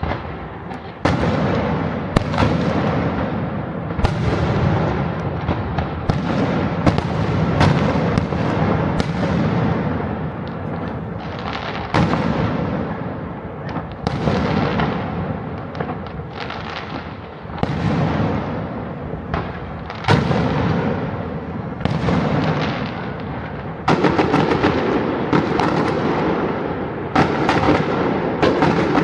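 Fireworks going off in a continuous barrage: a sharp bang every second or two over a steady crackling, each bang fading away after it.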